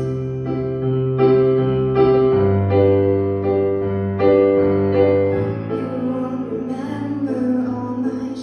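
Piano playing slow, sustained ballad chords, a new chord struck about every second, ringing on between strikes.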